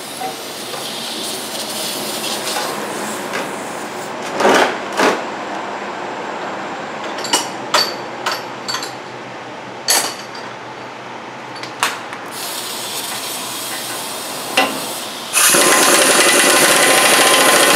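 A few scattered clicks and knocks of tools being handled, then, about fifteen seconds in, a pneumatic impact wrench starts hammering steadily for a couple of seconds, driving a ball joint separator tool to press the ball joint out of the steering knuckle.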